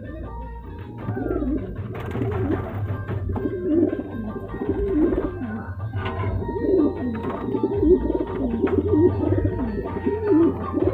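Sherazi pigeons cooing over and over, deep wavering coos following one another, with background music underneath.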